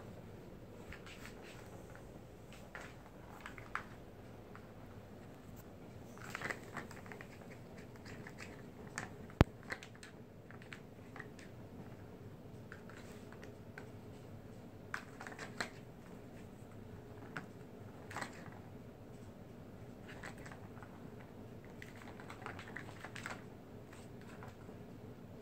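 A cat batting a ball around a plastic circular track toy: scattered light clicks and short rattling runs as the ball rolls in the track and paws tap the plastic. One sharp click about nine seconds in is the loudest sound.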